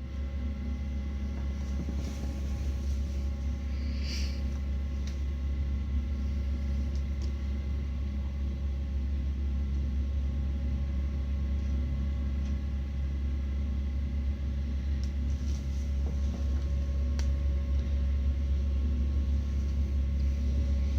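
Vacuum cleaner running steadily: a strong low hum with several steady tones above it, and a few faint clicks about four seconds in and again past the middle.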